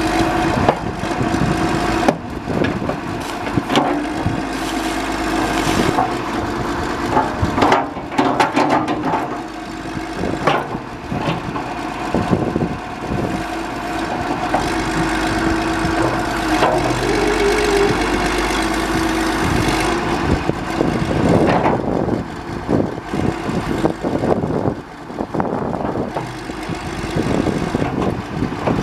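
John Deere 710D backhoe loader's diesel engine running, with a steady hum and many scattered knocks and clanks over it.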